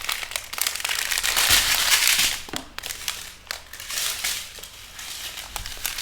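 Small plastic bags of diamond painting drills crinkling and rustling as they are handled, loudest in the first half.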